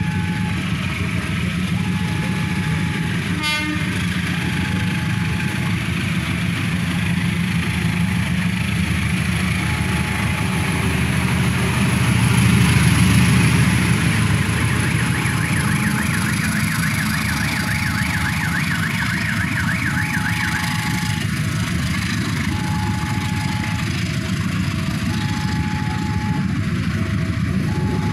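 A heavy diesel engine idles with a steady low rumble, while a two-note electronic beep repeats every couple of seconds. A brief rattle comes about three seconds in, and a wavering high tone sounds for a few seconds past the middle.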